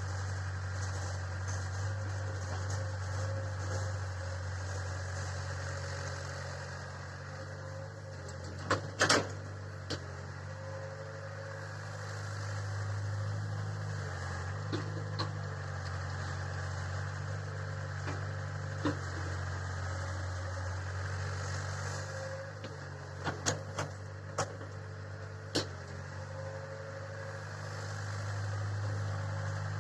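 A heavy vehicle's engine running steadily with a low drone. Sharp knocks cut through it: a loud pair about nine seconds in, and a cluster of them a few seconds before the end.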